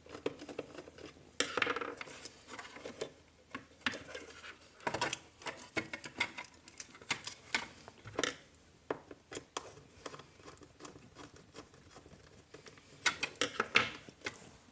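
Scattered small clicks, taps and scrapes of hands and a screwdriver working the screw terminals of a plastic bulb holder and handling its wires. Several clicks come close together near the end.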